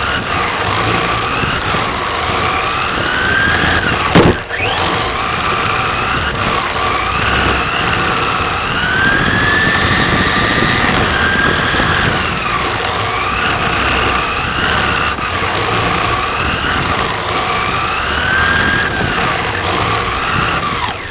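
Electric motor and drivetrain of a 1/10-scale RC touring car (Associated TC4 chassis) whining at speed, the pitch rising and falling again and again as the car speeds up and slows down. A sharp knock about four seconds in is the loudest sound.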